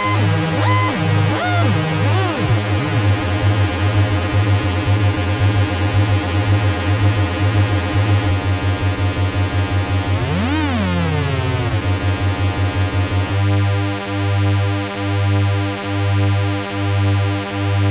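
MFOS Weird Sound Generator, an analog noise synthesizer, droning a low pulsing tone under a stack of buzzing tones. Chirping pitch glides sound in the first couple of seconds, one tone swoops up and back down about ten seconds in, and near the end the drone throbs slowly, about once every second.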